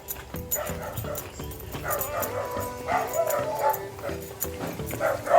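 A dog barking and yelping repeatedly, starting about two seconds in, over music played through a sound system.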